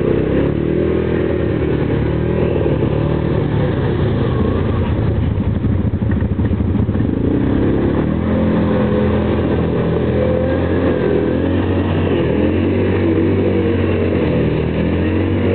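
Yamaha Grizzly ATV engine revving hard again and again, its pitch rising and falling as the quad pushes through slushy water.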